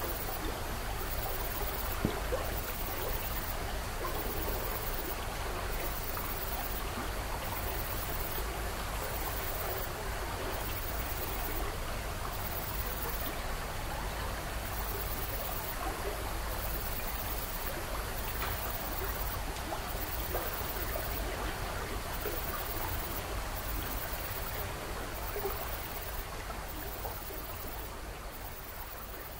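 Steady rushing noise of running water, with a single sharp click about two seconds in, fading down near the end.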